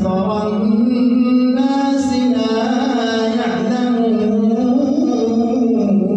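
A man reciting the Quran in melodic tajwid style during tarawih prayer: one voice holding long notes that rise and fall in pitch, with no break.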